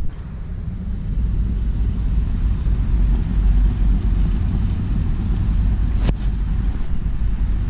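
Wind rumbling on the microphone, with a steady hiss above it and a single sharp click about six seconds in.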